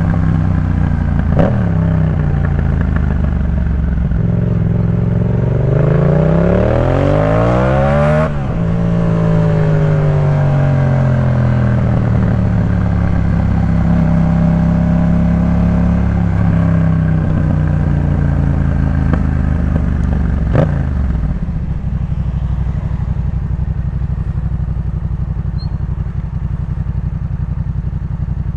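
2018 Yamaha MT-07's parallel-twin engine through a Jeskap K4 full exhaust, while riding. The note climbs under acceleration about six seconds in and drops sharply at about eight seconds as the throttle closes. It then holds steady for several seconds and falls to a low idle about twenty-one seconds in, with a sharp click just before the idle and another early on.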